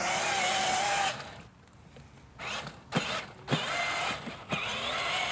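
Battery-powered ride-on toy motorcycle's electric motor and gearbox whirring as it drives over grass. It goes quiet about a second in, then picks up again with a few sharp knocks before running steadily.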